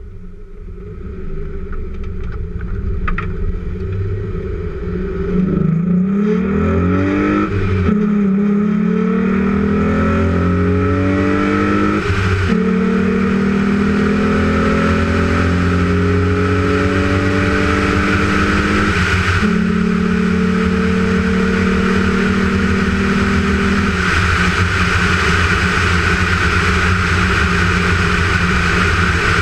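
VW Golf VR6's 2.9-litre VR6 engine, running with an open air filter, pulling through the gears. The sound grows louder over the first few seconds, then the pitch climbs and drops sharply three times, each climb slower than the last, as it shifts up. It then holds a steady cruising pitch for the last third.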